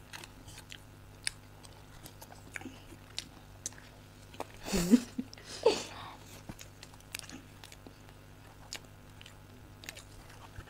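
People chewing and biting mouthfuls of chocolate cake, with many small scattered clicks and two brief louder sounds about halfway through.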